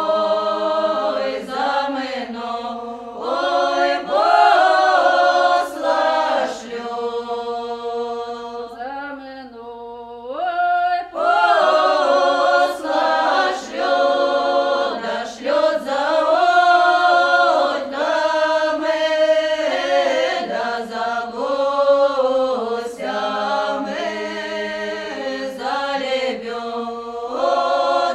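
Choir singing a Russian song unaccompanied, in long drawn-out notes. The voices thin out to a quieter passage about ten seconds in, then the full choir comes back.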